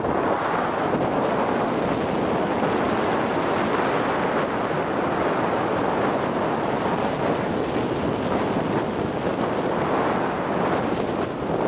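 Steady rushing wind noise buffeting the microphone of a camera carried by a skier moving fast downhill, mixed with the hiss of skis sliding on packed snow.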